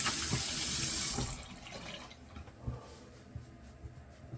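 Tap running into a sink, shut off about a second in, followed by a few faint knocks.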